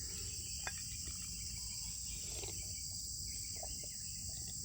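Steady background chirring of crickets or other insects, high-pitched and unbroken, with a few faint small ticks.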